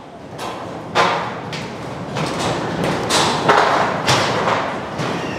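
Footsteps on a steel deck floor laid with rebar mesh: a run of irregular dull thuds and knocks, about one or two a second.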